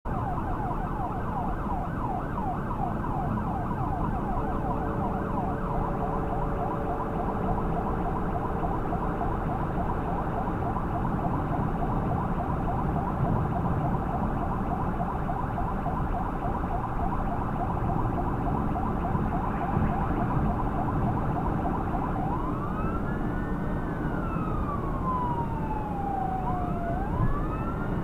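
Emergency vehicle siren yelping in rapid up-and-down sweeps, changing near the end to a slow wail that rises and falls, over steady road and engine noise from the moving vehicle.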